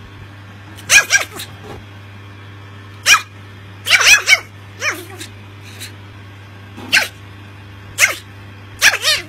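Chihuahua puppy barking in short, high yaps, single or in quick pairs, with a second or two between them.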